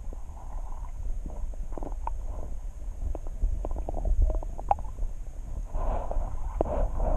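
Water heard underwater through a camera's waterproof housing: a steady low rumble with scattered clicks and gurgles, which grow busier about six seconds in.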